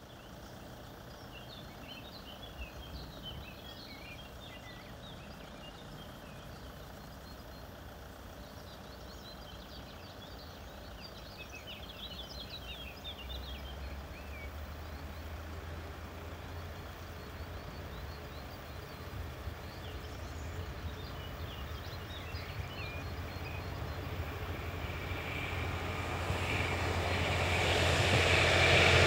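DB Class 628 diesel multiple unit pulling away and approaching: its underfloor diesel engine gives a low steady hum that grows louder over the second half as the unit nears and passes close by. Birds chirp in the background through the first part.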